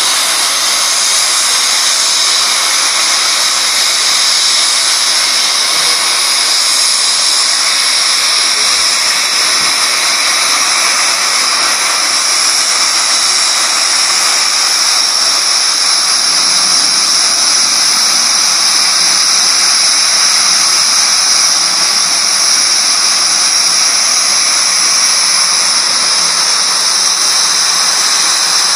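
Steam locomotive letting off steam in a loud, continuous hiss that holds steady without a break.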